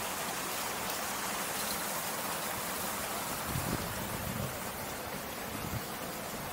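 A steady hiss of water, with a few soft low thumps about three and a half to four and a half seconds in.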